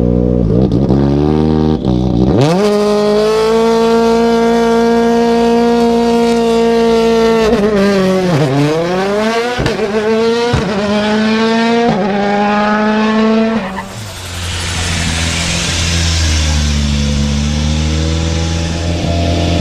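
Racing car engine and exhaust at high revs. It climbs and holds a high steady note, falls away, then climbs again in steps with short breaks, like upshifts. Near the end it settles into a lower steady drone under a hiss.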